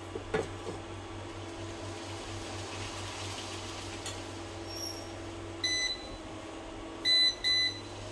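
A kitchen appliance's electronic beeper sounding a short beep about six seconds in, then two quick beeps near the end, over a steady low hum.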